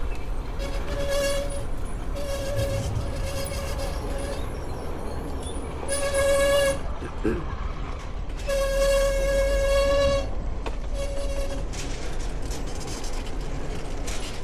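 Vehicle horn honking again and again, short and longer toots of one steady pitch, over a low engine and wind rumble.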